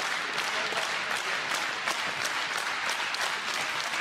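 Crowd applauding, with individual sharp claps standing out from the steady clapping.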